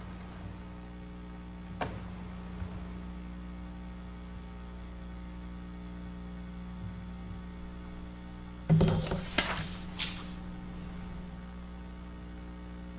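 Steady electrical mains hum in the meeting's audio system. A faint click comes about two seconds in, and a loud, short burst of noise lasts just over a second about nine seconds in.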